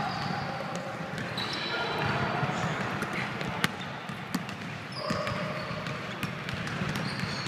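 Basketball being bounced on a gym floor, a few sharp thuds between about three and four and a half seconds in, with short high sneaker squeaks and players' voices echoing in the hall.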